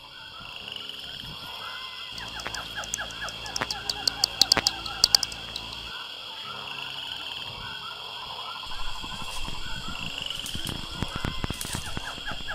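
Night-time tropical forest chorus: many frogs calling in short repeated notes over a steady high insect drone. A run of sharp clicks comes a few seconds in, and in the second half there is rustling of someone moving through undergrowth.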